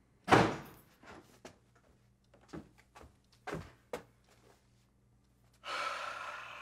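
A sharp knock about a third of a second in, then half a dozen lighter clicks and knocks, and a rough rasping sound lasting about a second near the end.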